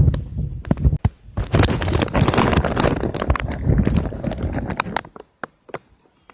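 Water drops hitting and splashing on a smartphone: irregular sharp ticks, with a brief hiss of water from about a second and a half to three seconds in, over some low handling rumble.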